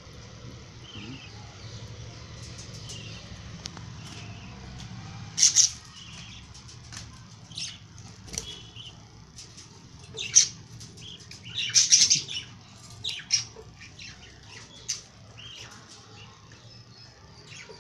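Young lovebirds giving short, shrill chirps, the loudest about five and a half seconds in and again around twelve seconds in. Small clicks and rustles come between the chirps.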